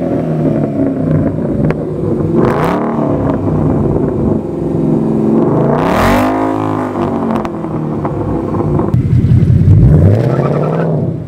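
2016 Ford Mustang GT's 5.0-litre V8 breathing through a cat-back exhaust on stock headers, revved up and back down three times while parked. The highest rev comes about halfway through.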